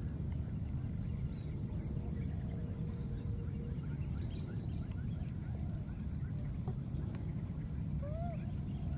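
Outdoor ambience: a steady low rumble with many faint short chirps, and one brief rising-and-falling call about eight seconds in.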